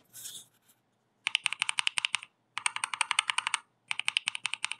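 Rapid typing on a mechanical keyboard fitted with Huimu (灰木) V4 linear switches, in three quick bursts of about ten keystrokes a second each, as a switch sound test.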